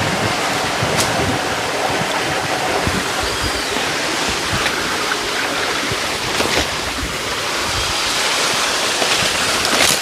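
Small spring-fed waterfall, about six metres high, with its water rushing and splashing in a steady, even noise.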